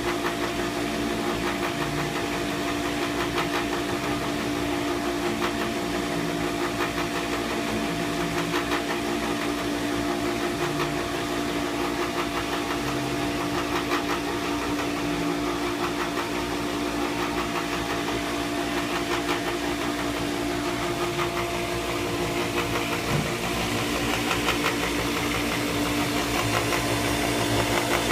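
Pentair WhisperFlo pool pump motor running with a steady hum and a rough, rapid rattling noise over it. It is still noisy even with new bearings fitted.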